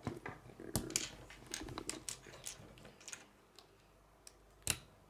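Small plastic Lego bricks clicking as they are handled, knocked against a wooden table and pressed together. There is a run of light clicks over the first three seconds and one louder click near the end.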